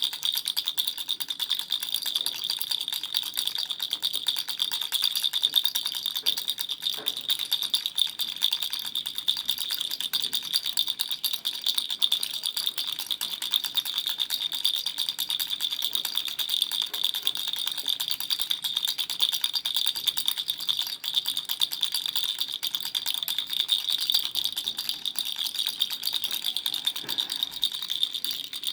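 Baby's toy rattle shaken without a break: a steady, fast, dense rattling of small pellets, bright and high-pitched.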